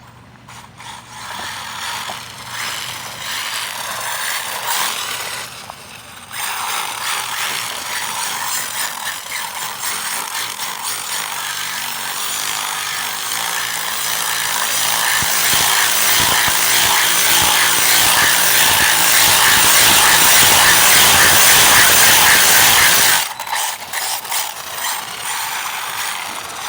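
Arrma Typhon RC car's electric motor and drivetrain whining at speed, the pitch wavering with the throttle. It grows to its loudest about twenty seconds in, then cuts off suddenly.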